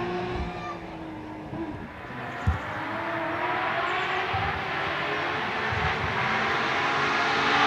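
Rally car engine at a distance, its tone fading away over the first couple of seconds, then slowly growing louder and rising a little in pitch as a car comes closer, loudest at the end. One short knock about two and a half seconds in.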